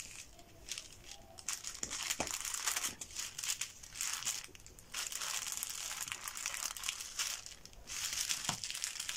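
A paper sewing pattern and the fabric beneath it rustling and crinkling as hands smooth the pattern flat and pin it down. The rustling comes in several long stretches, with a few light taps between them.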